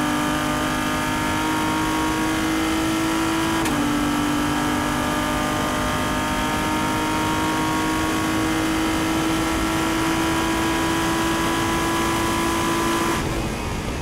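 Sports-prototype race car engine heard from inside the cockpit at full throttle. It upshifts once, about four seconds in, from fifth to sixth gear, with a quick drop in pitch. The note then climbs slowly and steadily before the throttle is lifted near the end and the engine note falls away.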